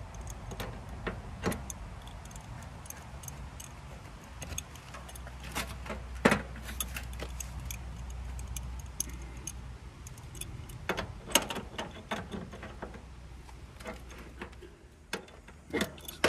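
Metal hand tool clicking and clinking against the brass service-valve and flare-nut fittings of a ductless mini-split's outdoor unit as the line-set connections are tightened. The clicks are irregular, the sharpest about six seconds in and a cluster around eleven to twelve seconds, over a low steady hum.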